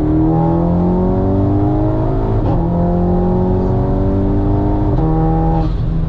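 Audi S3's turbocharged 2.0-litre four-cylinder at full throttle, heard from inside the cabin: the engine note climbs steadily from third gear, drops at an upshift about two and a half seconds in, climbs again, and drops at a second shift near the end.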